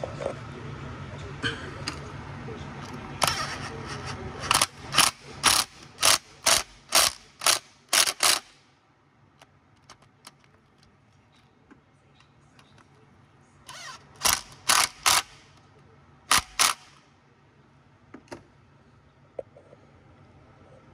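Ratcheting torque wrench clicking as bolts are tightened to 10 newton-metres, in three runs: about eight clicks at roughly two a second, then a pause, then about four more, then two.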